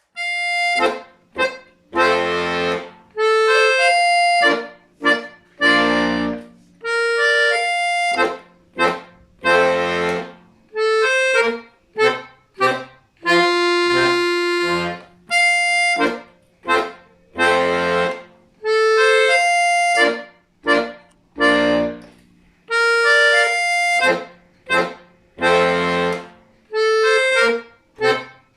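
Solo accordion playing a short classical dance piece: short, detached melody notes over low bass notes and chords.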